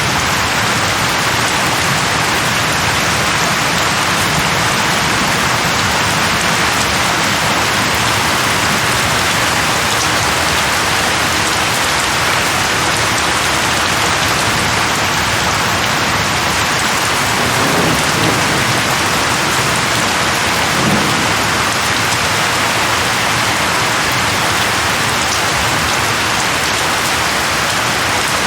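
Steady heavy rain falling on leaves, with two brief low rumbles of thunder about two-thirds of the way in.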